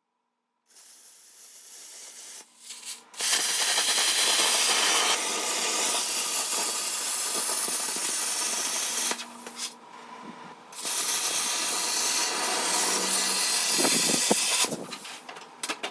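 Handheld plasma cutter cutting sheet metal freehand: a loud, steady hiss of air and arc in two long cuts with a short pause between, after a fainter hiss near the start.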